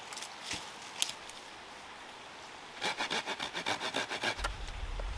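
Hand saw cutting through a hardwood post in a quick, even run of strokes, about five a second, starting about three seconds in. A few light wooden clicks come before it.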